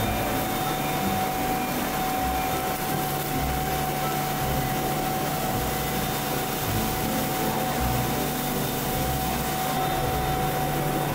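Steady machinery noise on a food-factory floor: a constant hiss with a steady whine running through it, and low rumbles that come and go.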